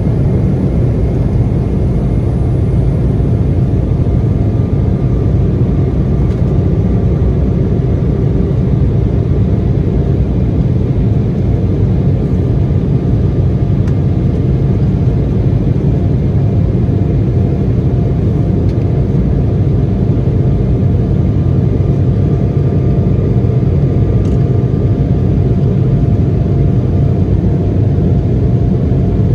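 Cabin noise of an Embraer 175 jet under takeoff power: the steady, loud rumble of its two GE CF34 turbofan engines and airflow, with a faint, steady engine whine above it.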